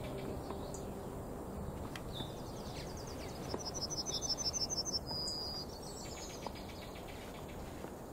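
Summer outdoor ambience: insects and birds chirping over a soft steady hiss, with a fast run of high chirps in the middle.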